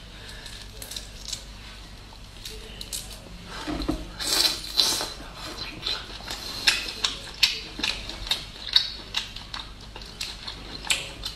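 Close-miked sounds of boiled shrimp being peeled and eaten: shells crackling and snapping in the fingers, and wet chewing with sharp mouth clicks. The clicks grow louder and denser from about four seconds in.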